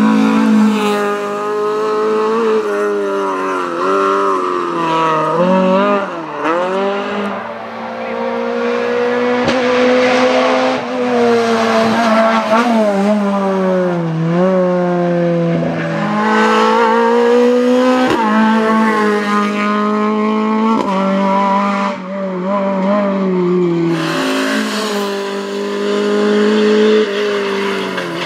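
Rally car engines driven flat out, starting with a Ford Escort Mk2, several cars passing one after another. Each engine climbs in pitch, breaks off at a gear change or a lift for a corner, and climbs again.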